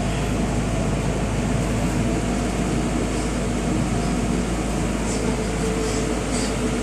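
Engine-room machinery running with a steady drone. A steady higher hum joins it near the end.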